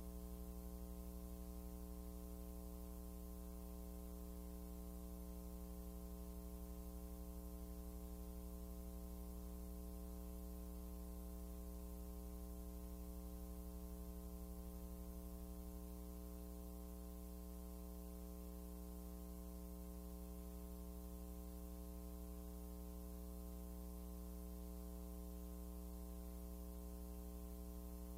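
Steady electrical mains hum with a stack of overtones and a faint hiss under it, unchanging throughout.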